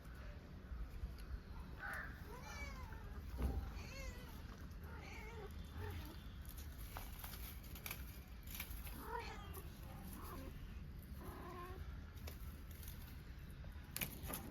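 Kitten mewing over and over in short calls that rise and fall in pitch. There is a knock about three and a half seconds in and another near the end.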